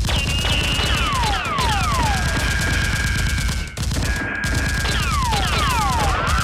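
Rapid automatic gunfire sound effects in long bursts, with short breaks about a second and a half in and near four seconds. Falling whistling tones and steady high tones run over the shots.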